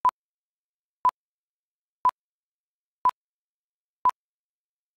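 Short electronic beeps at one steady pitch, evenly spaced one a second, five in all.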